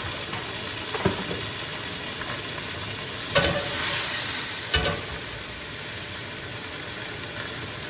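Chicken leg quarters frying in oil as they brown, giving a steady sizzle that swells briefly about four seconds in. Three sharp knocks land at about one, three and a half and five seconds.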